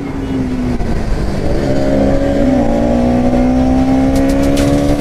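Motor vehicle engine held at high revs, its pitch climbing slightly over the first two seconds and then holding steady.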